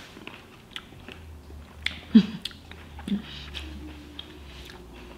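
A person chewing a fresh grape tomato with the mouth open: irregular soft clicks and smacks.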